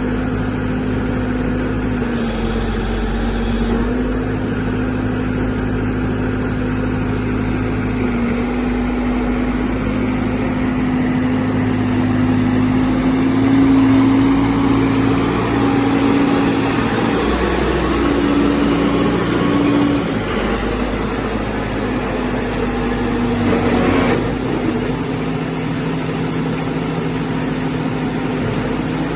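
Caterpillar 416C backhoe loader's diesel engine running steadily, its speed dipping and rising slightly a few times.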